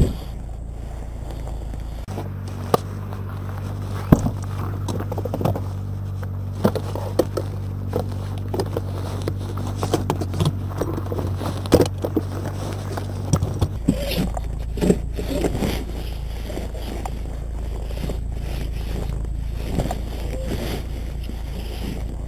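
Veloped walker's frame and wheels scraping and knocking against packed snow and a car's rear bumper as it is handled at the car's boot, with irregular clatters throughout. A steady low hum runs from about two seconds in until just before the middle.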